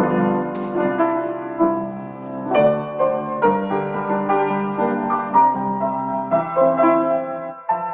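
Slow instrumental keyboard music: sustained chords that change every second or so, with a brief break near the end.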